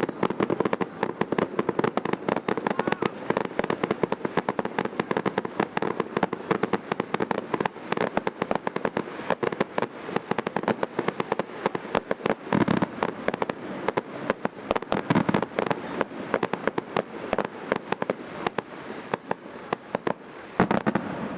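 Aerial fireworks crackling: a dense, continuous rattle of many small pops, with a few heavier bursts standing out around the middle and near the end.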